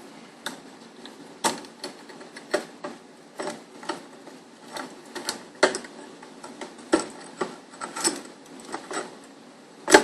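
Irregular clicks and light knocks, one or two a second, as the peephole viewer's bracket and parts are handled and pressed into place on a door. A sharper knock comes right at the end.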